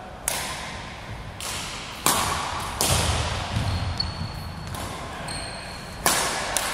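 Badminton racquets striking a shuttlecock in a rally: a series of sharp cracks roughly a second apart, each followed by a short echo in the large hall.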